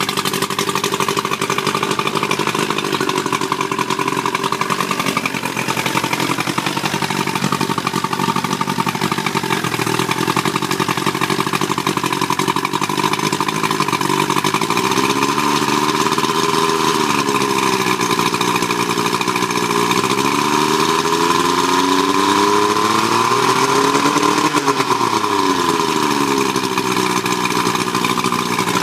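70 hp Johnson outboard motor running on a test stand with its propeller out of the water, cooled by a garden hose. It idles steadily, then is revved up and let back down three times in the second half, the last rev the highest.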